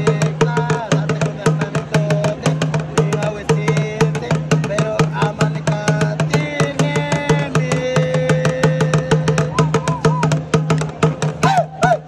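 A drum beaten in fast, dense strokes with voices chanting over it, the sung lines short and sliding in pitch; near the end the voices slide downward.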